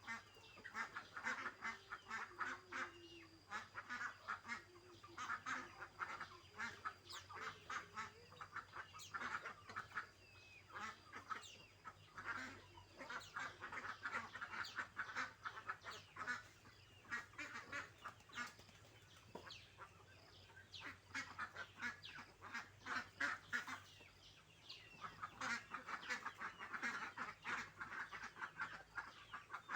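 A flock of birds, most likely domestic fowl, calling continuously in rapid chattering bursts that swell and fade every few seconds.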